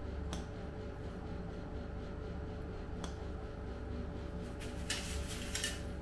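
A couple of light clicks, then about a second of papery rustling near the end as a tube of grease is slid out of its cardboard box, over a steady low hum.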